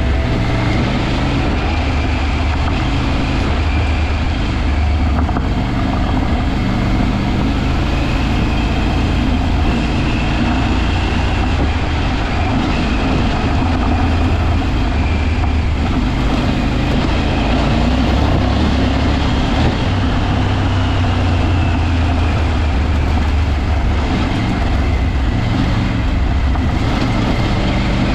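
Off-road vehicle's engine running steadily while driving, with road noise.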